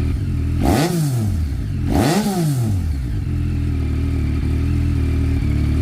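A 2021 Yamaha MT-09's three-cylinder engine idling, blipped twice through the exhaust: a quick rev up and back down about a second in, then another at about two seconds, before it settles back to a steady idle.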